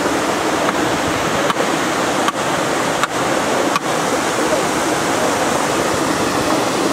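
Steady rushing of cascading water: the discharge from the Tsujun Bridge stone arch aqueduct.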